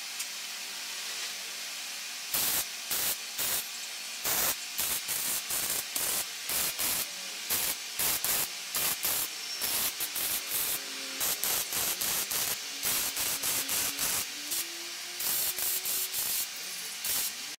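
Electric arc welding on a steel tube frame: a long run of short, separate arc bursts, each under a second, as joints are tack-welded. A steady hiss lies underneath.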